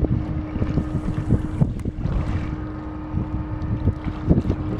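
Steady low hum of a passing inland motor cargo ship's engine, with gusts of wind buffeting the microphone over it.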